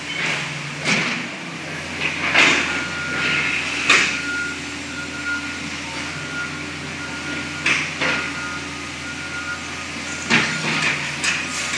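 Hydraulic excavator's diesel engine running steadily while its bucket and demolition clamp grab and drop trash, with several loud crashes and clatters of falling debris. A reversing alarm beeps through the middle.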